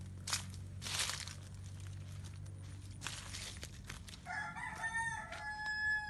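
A rooster crowing, starting about four seconds in and ending on a long held note. Before it, rustling and brushing through leafy plants.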